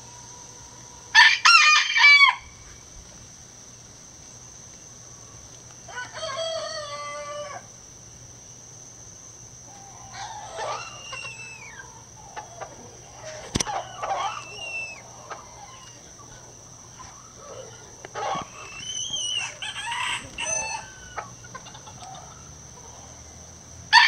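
Gold Sebright bantam rooster crowing, one loud crow about a second in and another starting at the very end, with fainter crows and clucking calls in between.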